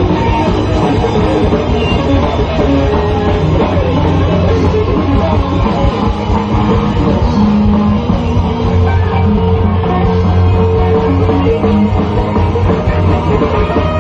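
Heavy metal band playing live: electric guitars, bass and drum kit, loud and continuous.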